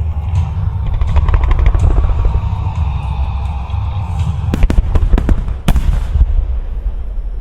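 Fireworks display: a rapid barrage of shell bursts and crackling over a constant low rumble, building to a cluster of loud, sharp bangs about two-thirds of the way through.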